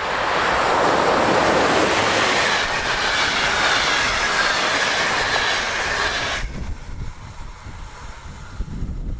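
Bombardier Traxx 3 electric locomotive and its intercity coaches passing close at speed: a loud rush of wheels on rail with a faint high whine. It cuts off sharply about six seconds in as the last coach goes by, leaving wind on the microphone.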